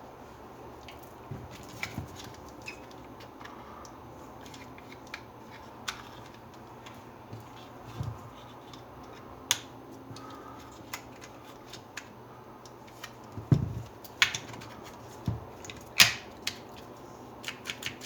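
Scattered clicks and knocks of a hammer drill's parts being handled and fitted back together, with a few louder knocks in the last third.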